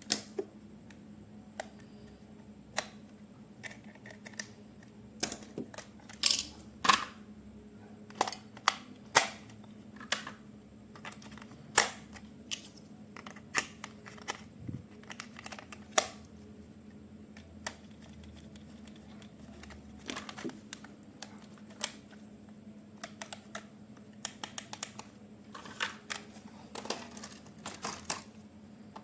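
Hands handling objects at close range: irregular sharp clicks and taps, sometimes several in quick succession and sometimes with pauses between them, over a faint steady hum.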